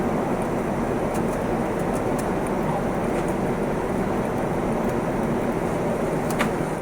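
Steady rushing cabin noise of a Boeing 787-10 jet airliner, even throughout, with a few faint clicks and one clearer click near the end.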